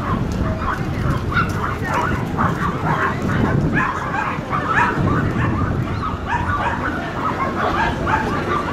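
Dogs barking and yipping in quick, repeated short calls, several a second, over a steady low background noise.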